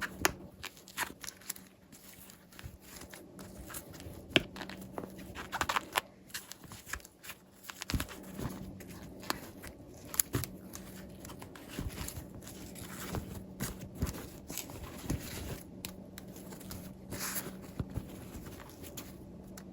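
Hands handling plastic toy packaging and small doll pieces: irregular clicks and rustles at close range, over a faint steady hum.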